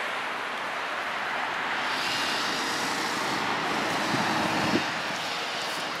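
Steady traffic noise from cars passing on a multi-lane road, swelling a little in the middle and easing again.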